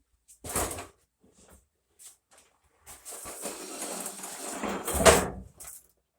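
Handling noises: a short knock, then a few seconds of scraping or sliding that grows louder and ends in a sharp knock.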